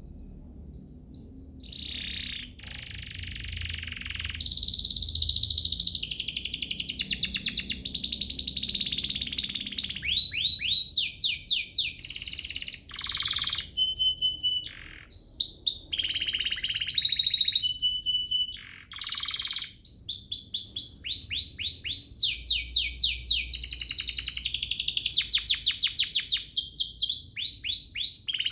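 Domestic canary singing a long, continuous song of rapid trills and rolls. Quick runs of repeated whistled and buzzy notes change every second or two, with brief breaks. The song starts softly and is full volume from about four seconds in.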